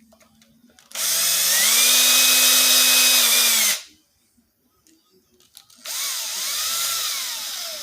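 Power drill turning a piloted countersink bit in the cam-lock receptacle holes, in two runs. The first lasts about three seconds: it speeds up, holds steady and stops. The second starts about six seconds in, its speed rising and falling before it winds down.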